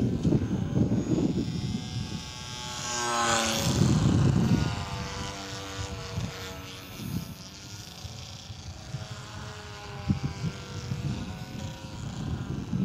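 Electric RC model airplane's motor and propeller whining overhead, its pitch dropping sharply as it passes close, about three to four seconds in, then holding a steady drone as it flies off. Wind rumbles on the microphone, mostly near the start.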